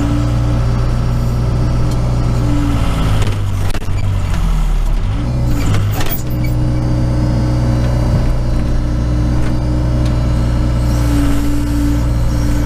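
Case 580 Super K backhoe's four-cylinder diesel engine running steadily, heard from inside the cab. About three seconds in the engine pulls down in pitch for a couple of seconds as the boom is worked, then recovers, with a couple of short clunks around then.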